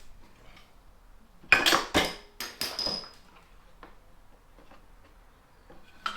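Metal hand tools clinking and clattering: a quick cluster of sharp clanks with a short metallic ring between one and a half and three seconds in, and one more click at the very end.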